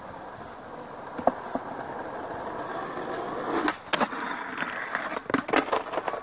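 Skateboard wheels rolling on asphalt, growing louder as the board approaches. Then come sharp clacks of the board hitting the ground, a couple about four seconds in and a quick cluster near the end.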